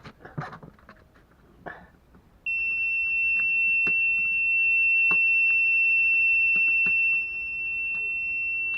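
A marine engine's instrument-panel warning buzzer sounds one steady high-pitched tone, starting suddenly about two and a half seconds in and holding on, with a few sharp clicks over it. This is the alarm that sounds with the key switched on before the engine is running.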